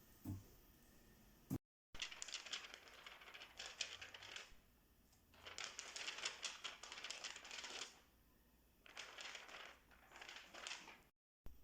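Several bursts of fast, dense clicking and clinking, like small hard objects being rattled, each lasting a second or two with short pauses between them.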